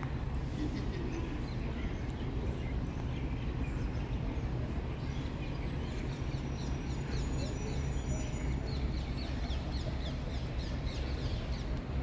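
Many small birds chirping in quick, overlapping calls, thickest in the second half, over a steady low rumble.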